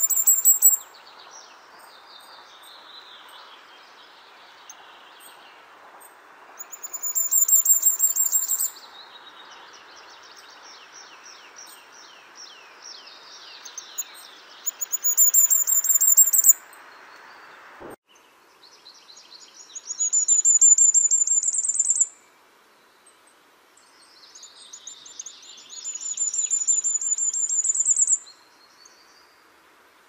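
A songbird singing the same short phrase five times, about every six seconds: each phrase a rapid run of high notes lasting about two seconds, climbing to a high finish. A faint steady hiss lies underneath and cuts off abruptly about 18 seconds in.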